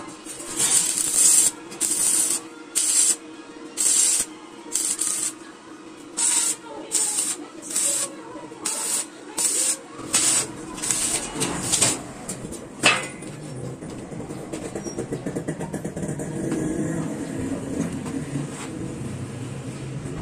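Stick (arc) welder tacking joints on a steel-tube frame: a string of short crackling hiss bursts, each under a second long, about once a second. The bursts stop about two-thirds through, followed by one sharp click and then a steadier, lower noise.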